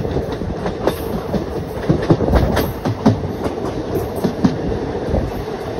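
Passenger train running at speed, heard from on board: a steady rumble and rush with an irregular clatter of the coach wheels over the rail joints.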